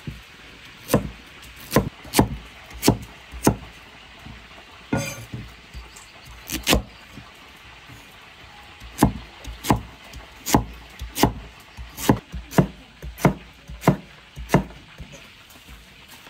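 Heavy cleaver chopping through sweet potato onto a thick wooden chopping block: sharp single knocks, a handful early on and a few more in the middle, then a steady run of chops about two a second in the second half.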